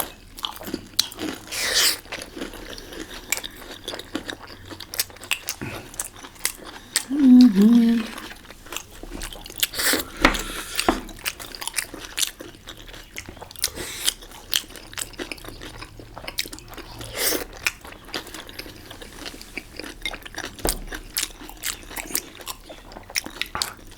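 Close-up eating sounds of momo dumplings: irregular bites, wet chewing and light crunches. A short hummed "mm" comes about seven seconds in.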